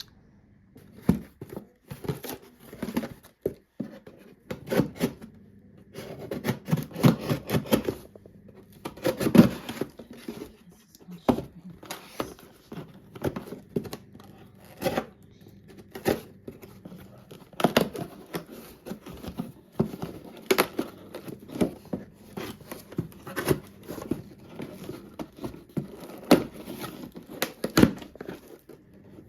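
A cardboard delivery box being opened and unpacked by hand: tape tearing, cardboard and packaging rustling and crinkling, with scattered clicks and knocks.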